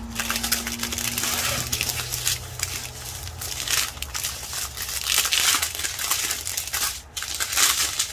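Clear plastic zip bags of diamond-painting drills crinkling as they are handled and shifted about, in irregular surges.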